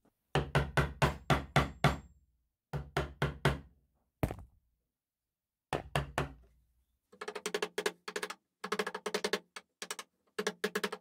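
Mallet striking a chisel as it cuts into a pine board, in quick runs of sharp knocks about four a second, with short pauses between the runs. From about seven seconds in comes a faster run of lighter, more ringing taps.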